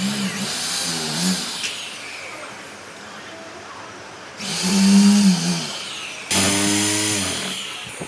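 A handheld electric power tool running in bursts. It runs until about a second and a half in, then starts up again twice, about four and a half and six seconds in, with a hum and a harsh hiss.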